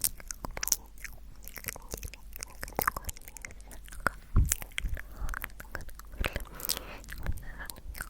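ASMR mouth sounds: a quick, irregular run of wet clicks and smacks of tongue and lips, with one louder low thump about four and a half seconds in.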